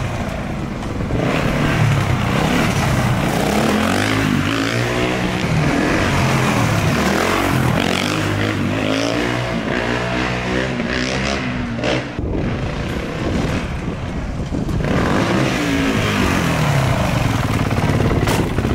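Honda CRF four-stroke dirt bike revving hard as it rides along the street, its engine note rising and falling again and again through the gears. The note drops away briefly about twelve seconds in, then climbs again.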